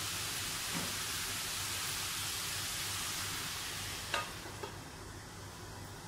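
Chopped beetroot frying in a pan with a steady sizzle. About four seconds in, a stainless steel lid clinks down onto the pan, and the sizzle then goes quieter and duller under the lid.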